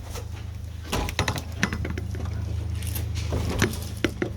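Steady low hum with a few short clicks and knocks, in a cluster about a second in and again near the end.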